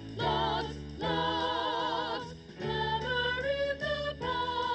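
A slow song sung with strong vibrato over a steady bass line and backing, in phrases with a brief pause about two and a half seconds in.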